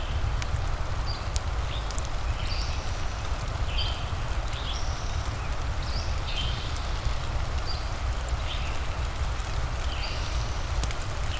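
Steady rain with a deep, even rumble, and occasional sharp crackles from a fireplace. Short, high chirps recur roughly once a second over it.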